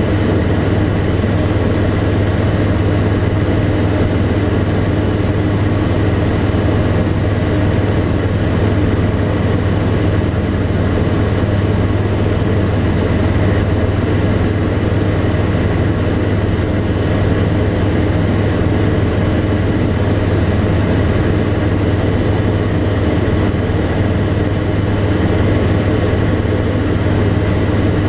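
Steady drone of a Tecnam P92 Echo Super's Rotax 912 engine and propeller in level cruise, heard inside the cockpit: a strong, unchanging low hum with a constant higher tone over it.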